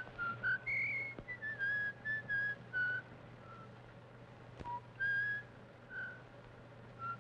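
A person whistling a tune, a run of short notes with a pause near the middle, and a single sharp click about four and a half seconds in, over a low steady hum.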